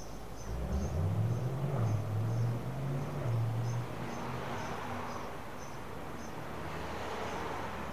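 Outdoor ambience: a short high chirp repeats about twice a second, under a low engine-like hum that swells about half a second in and fades out after about four seconds.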